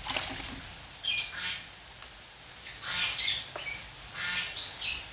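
A bird calling with loud, short, high chirps and squawks, in several quick clusters.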